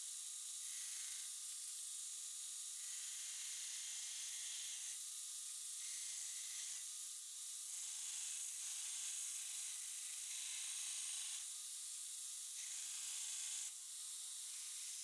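Belt grinder's abrasive belt grinding the profile of a forged twist-damascus steel blade: a steady hiss that shifts in tone every second or two as the blade is moved along the belt.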